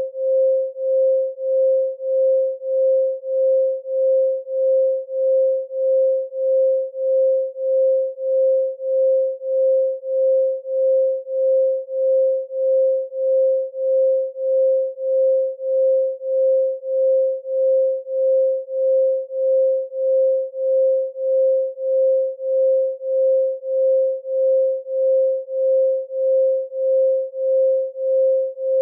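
A pure 528 Hz sine tone, the solfeggio 'frequency of love', held at one steady pitch. Its volume pulses evenly, swelling and fading about one and a half to two times a second.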